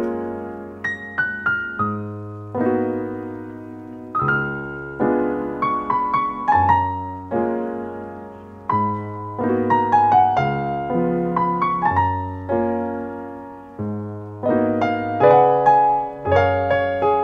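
Solo piano music: chords over low bass notes, each note struck and left to ring and fade.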